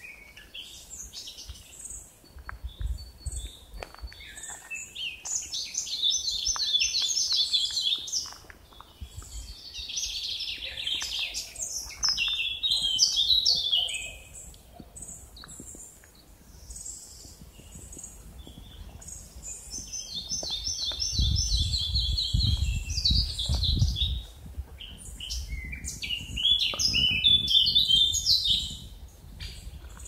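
Songbirds singing: repeated bright phrases of two to three seconds each, coming in several bouts with short pauses between, and a low rumble on the microphone about two-thirds of the way through.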